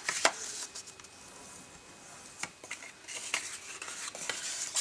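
Bone folder burnishing the creases of folded kraft cardstock, with paper crinkling and a few sharp taps as the card is handled. A scratchy rubbing runs from about three seconds in.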